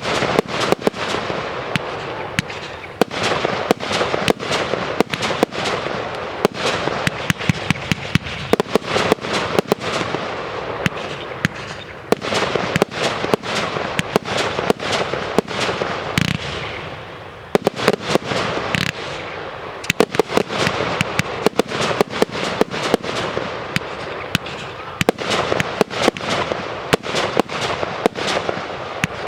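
Fireworks display: a dense, rapid stream of shell bursts and bangs with crackling between them, thinning briefly just past the middle.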